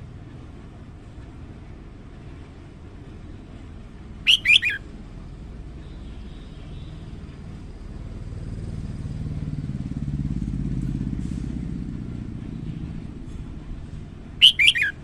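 Red-whiskered bulbul giving two short, quick song phrases of three or four notes each, one a few seconds in and one near the end. A low rumble swells and fades in between.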